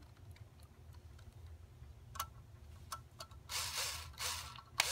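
Small cordless power screwdriver driving screws into the metal bracket of a printer interface card: a few sharp clicks, then two short whirring bursts near the end as the screws run in.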